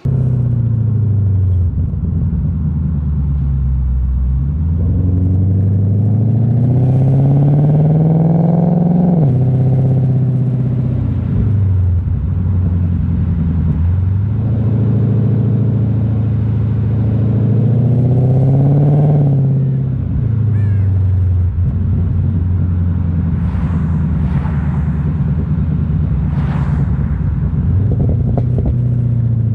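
Infiniti Q45's VK45DE 4.5-litre V8 accelerating hard, its pitch climbing through a gear and dropping sharply at the upshift, twice, then running at a steadier speed.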